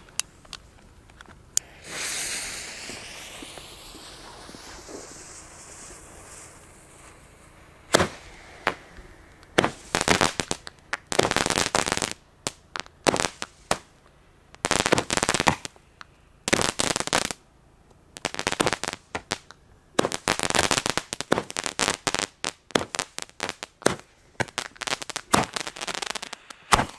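Lit fuse hissing steadily for about six seconds, then a 30-shot daylight confetti fireworks cake (Lesli 'Loving War') going off from about eight seconds in. It fires shot after shot in quick, irregular clusters of sharp bangs with short crackling tails until the end.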